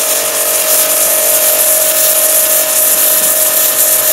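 BTALI BT 1100 electric pressure washer running: a steady motor-pump whine under the loud hiss of a narrow high-pressure water jet blasting into a cement brick and cutting into it.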